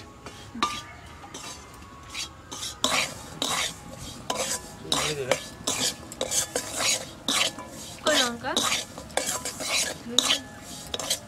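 A metal spatula scraping and stirring dry masala of crushed toast-biscuit crumbs and peanuts in an aluminium kadai, the filling stir-roasting until ready. The quick, repeated scraping strokes start about three seconds in.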